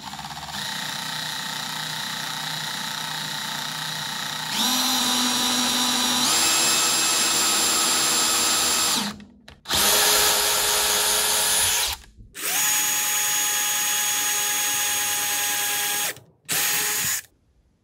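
Craftsman cordless drill with a 1/8-inch bit drilling pilot holes into a wooden workbench top. The motor whine speeds up in two steps over the first several seconds, stops after about nine seconds, then starts again in three shorter runs, the last a brief burst near the end.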